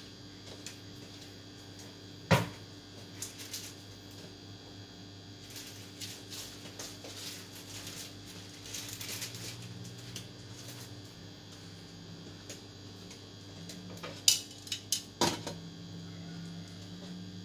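Dishes and utensils clinking and knocking now and then, with one sharp knock about two seconds in and a quick run of four knocks near the end, over a steady low hum.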